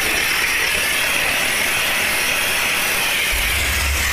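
Steam car-wash machine's wand jetting steam in a steady hiss; a low hum comes in about three seconds in.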